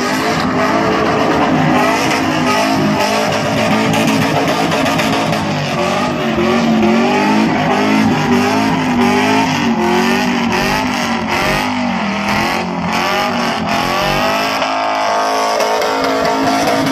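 Car engine revving hard while drifting on a wet surface, its pitch rising and falling over and over as the throttle is worked through the slide.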